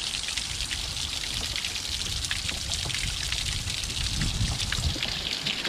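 A thin stream of water trickling over a granite ledge and spattering onto the rocks below: a steady splashing hiss over a low rumble.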